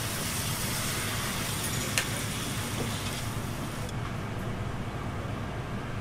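Steady low hum of kitchen equipment under an even hiss that fades out about three to four seconds in, with a single sharp clink about two seconds in.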